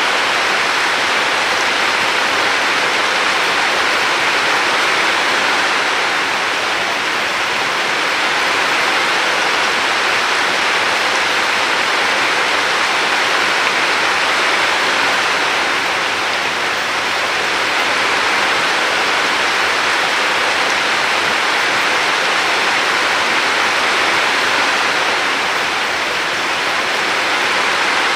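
River water rushing in a steady, continuous flow, its hiss rising and falling gently in loudness.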